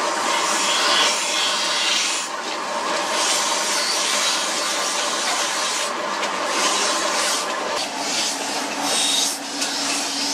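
Belt-driven grinding wheels running with steel scissor blades pressed against them: a steady machine hum under a grinding hiss that swells and fades as each blade is worked against the wheel. The steady tone changes about eight seconds in.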